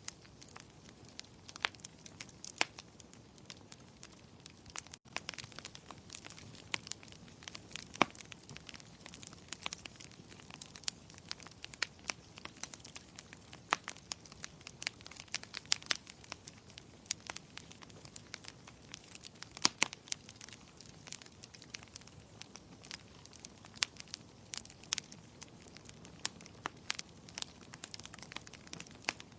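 Fire in a fireplace crackling: irregular sharp crackles, several a second, over a soft steady hiss of the flames.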